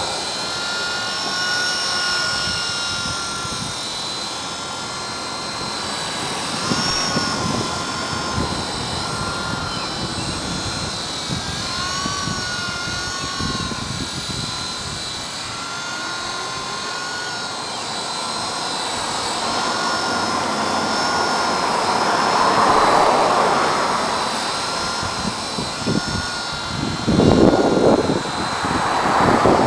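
GAUI Hurricane 200 electric RC helicopter in flight: a steady motor and rotor whine that bends gently up and down in pitch as it manoeuvres. Gusts of rushing noise come through near the end.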